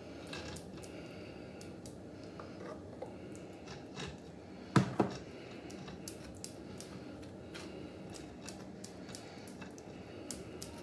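Jam being spooned out of a plastic tub and spread over a sponge cake with a metal spoon: faint scraping and small clicks. About five seconds in come two sharp knocks close together.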